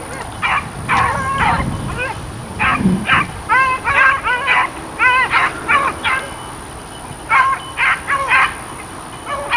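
Beagles baying on a rabbit's trail: bursts of short, high yelps, with a brief lull past the middle.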